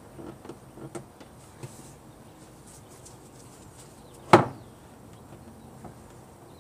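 Plastic air filter housing of a BMW 328i being handled and seated: a few light knocks and rattles in the first second or so, then one sharp, loud plastic clack about four seconds in as the box is pressed into place.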